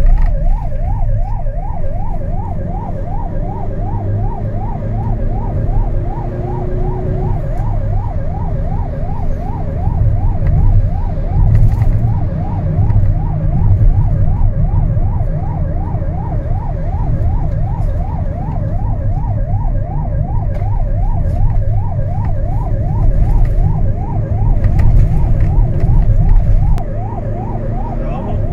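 Emergency vehicle's electronic siren in yelp mode, its tone sweeping rapidly up and down several times a second. It is heard from inside the vehicle's cabin over steady engine and road rumble.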